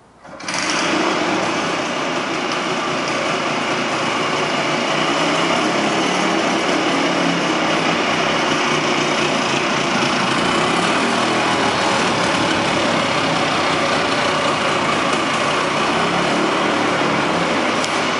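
Small gasoline engine of a Par Car utility golf cart running steadily as the cart drives. It cuts in abruptly just after the start and holds a constant level.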